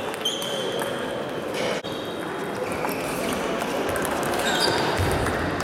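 Celluloid-type table tennis balls clicking off bats and tables, many short high pings overlapping from the near rally and several other tables, echoing in a large sports hall with a low murmur of players' voices.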